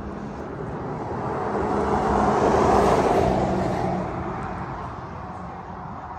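A road vehicle passing by. Its tyre and engine noise swells to a peak about halfway through, then fades away.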